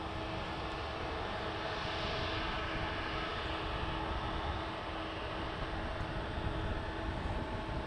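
Embraer E170 airliner's twin GE CF34-8E turbofan engines running on final approach to land: a steady jet rush with a few held whining tones.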